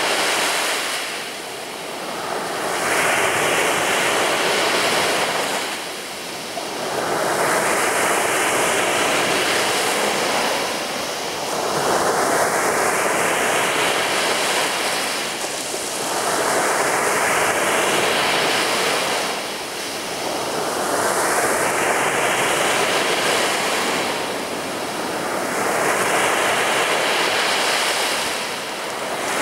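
Sea waves breaking and washing up a beach in a steady surf, swelling and easing every four to five seconds, about six times.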